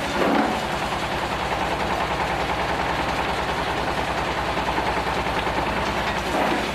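Stone crusher machine running steadily: a continuous mechanical clatter over an even low hum with a fast, regular pulse.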